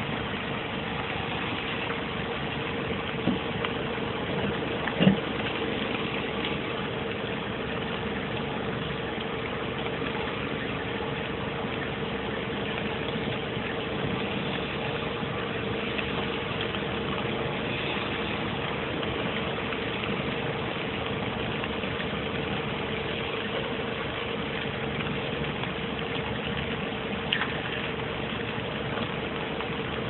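Steady hum of an idling engine with a constant mid-pitched tone. Over it come a few small metal clicks of broken-key extraction picks working in a car door lock, the sharpest about five seconds in.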